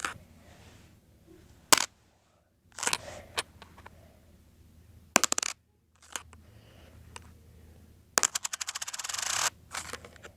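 A coin clattering on a hard surface: a few single clicks and short rattles, then a long wobbling run of clicks that come faster and faster until it stops abruptly, like a spun coin settling flat.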